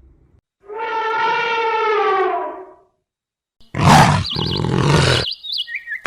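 An animal's long pitched call, about two seconds, falling slightly in pitch. After a short silence comes a louder, rough, noisy call of about a second and a half, with a warbling high tone over it.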